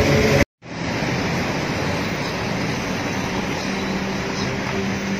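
Steady city street noise of road traffic, a constant rushing hum, after a brief cut to silence about half a second in.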